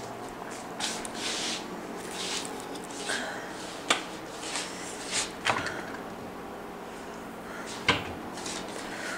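Handling noise from a handheld camera held close: three sharp clicks, the loudest near the end, among soft rustling.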